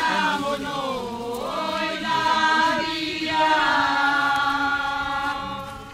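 A group of pilgrims singing a slow devotional chant together, with drawn-out held notes and slow slides between them, fading out near the end.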